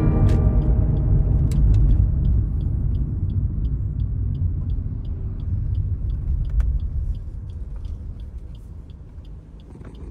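Low, steady rumble of a moving car on the road, fading out over the last few seconds, with a faint regular ticking two to three times a second.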